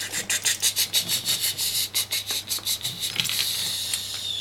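Steam-train chugging imitation: quick, even 'ch-ch-ch' chuffs, about eight a second, going along with a wooden Thomas the Tank Engine toy being pushed along. About three seconds in the chuffs give way to a steady steam hiss that ends with a short falling whistle.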